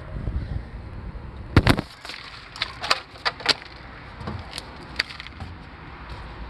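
A loud knock about a second and a half in, followed by a quick run of sharper clicks and knocks, and one more click about five seconds in.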